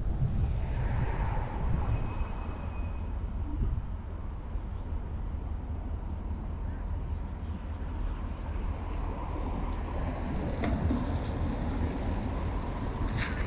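Steady low rumble of a car waiting at a stop sign with its engine idling, and another car passing across the intersection about ten seconds in.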